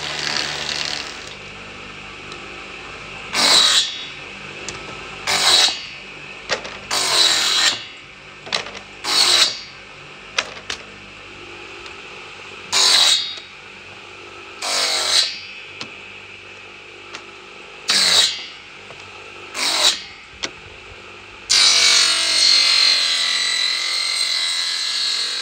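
A bench circular saw, its blade mounted straight on the motor shaft, runs steadily. It rips thin wooden strips off a board in short loud cuts about every two seconds, eight times, and makes one longer cut of about four seconds near the end. A thickness planer is running at the very start.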